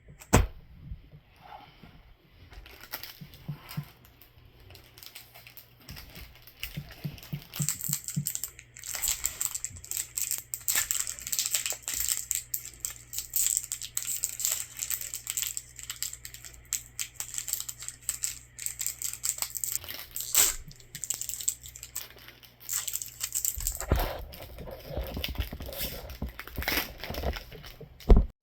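Foil trading-card booster pack wrappers tearing and crinkling in the hands, an irregular crackling rustle that goes on and off.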